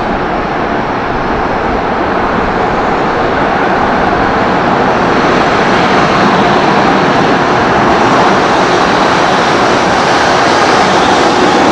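An approaching train, its rumble growing steadily louder as it draws near.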